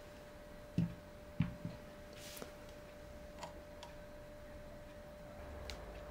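Metal madeleine tin knocked against the countertop to tap out the excess dusting flour: two dull knocks about a second in with a softer third just after, then a few light metallic taps and clicks.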